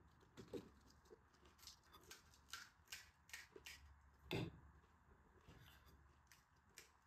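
Faint clicks and scrapes of a steel spoon against a stainless steel bowl as potato filling is scooped out, with one louder knock about four seconds in.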